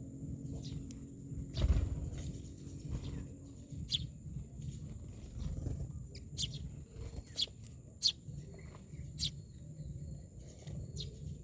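Myna birds giving short, sharp, high calls at irregular intervals, about half a dozen of them, over a low rumble, with a thump about two seconds in.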